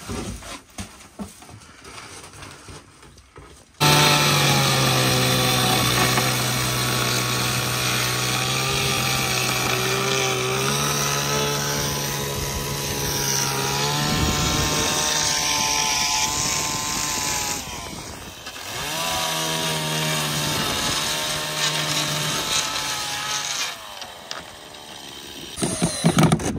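Chainsaw running at high revs while cutting wood, its engine note shifting as the load changes; it stops for about a second partway through, then runs again and stops near the end. A few faint knocks come before it starts.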